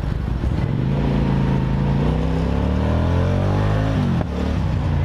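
Comet GTR motorcycle's V-twin engine through an aftermarket exhaust, pitch rising steadily as it accelerates for about three seconds, then a brief dip at a gear change about four seconds in before it pulls again.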